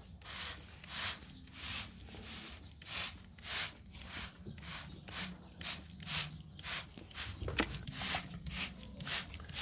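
Plastic trigger spray bottle squirting fine mists of water onto the soil of a seedling tray, a quick hiss with each pull of the trigger, about two to three squirts a second.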